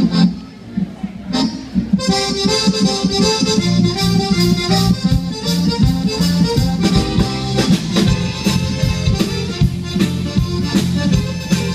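Cajun band playing live, a button accordion leading with fiddle, electric guitar and drum kit behind it. After a short, sparse lead-in, the full band comes in about two seconds in with a steady beat.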